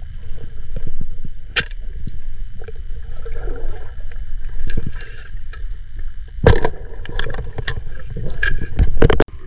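Water sloshing and splashing close to the microphone, over a steady low rumble, with scattered sharp clicks and a few louder knocks about one and a half, six and a half and nine seconds in.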